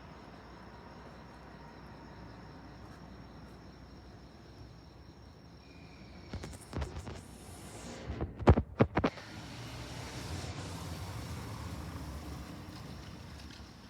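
A road vehicle drives over the rails of the level crossing, giving a quick run of sharp clunks as its tyres hit the rails, the loudest a little past the middle. Its rolling noise swells and fades after, over a steady background of crickets chirping.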